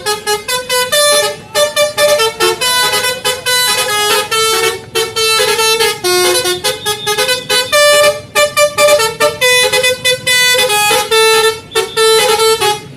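Bus telolet 'basuri' musical air horn playing a fast melody of short toots at changing pitches.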